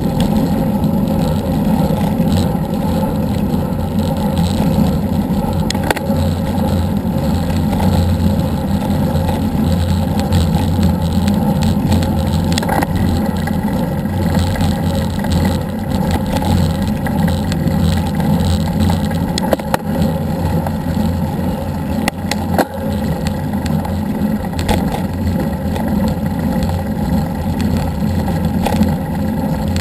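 Steady wind rush and road rumble on a moving action camera's microphone, with a few brief sharp knocks along the way.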